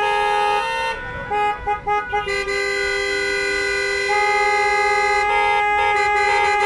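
Several car horns honking together from cars held up in stopped traffic. A few short toots about a second in give way to long, overlapping blasts held without a break, louder from about four seconds in.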